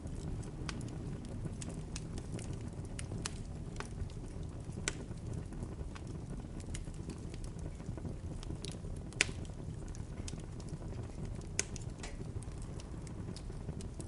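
Bonfire burning: a steady low rumble of flames with scattered sharp crackles and pops, the loudest about nine seconds in and another near twelve seconds.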